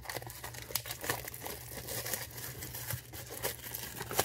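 Plastic shrink wrap being torn and crinkled off a cardboard booster box: an irregular run of crackles and small rips.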